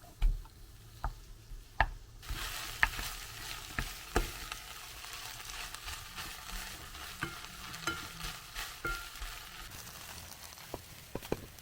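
Food sizzling in a frying pan. The sizzle starts suddenly about two seconds in and dies away near the end, with sharp knocks of a utensil against the pan throughout.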